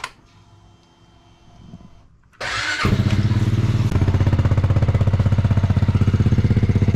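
A Trailmaster 300 XRS buggy's 300cc fuel-injected engine is started on fresh oil after an oil change. It starts about two and a half seconds in with a brief crank, catches at once, and settles into a steady idle with a rapid, even pulse.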